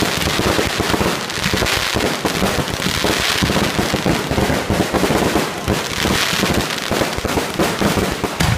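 Aerial fireworks going off in a dense, unbroken barrage: many shells and crackling stars bursting at once, the bangs and crackles overlapping with no pause.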